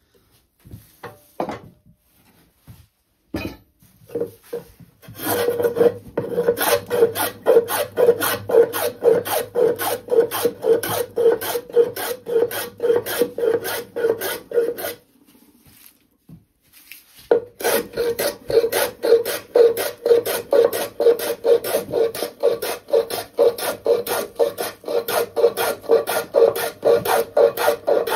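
Hand scrub plane taking heavy, rapid strokes across a spruce board, each pass a short rasping scrape, repeated evenly. There are two long runs of strokes with a pause of about two seconds in the middle, after a few quieter knocks of the plane being set on the wood.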